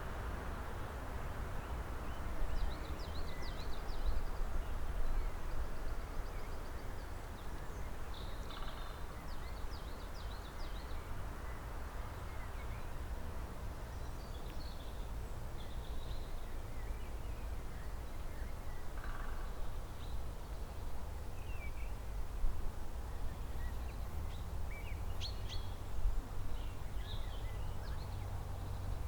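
Birds chirping outdoors: scattered short chirps and brief trills from several birds, heard over a steady low rumble of background noise.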